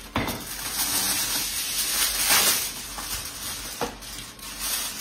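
Aluminum foil being pulled from its box and crinkled as it is spread over a baking dish: a continuous rustling crackle that starts suddenly just after the beginning and is loudest a little past the middle.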